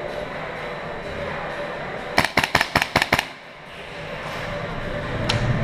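Airsoft gun fire: a rapid burst of about eight sharp shots in about a second, over the steady noise of a large hall, with one more single shot near the end.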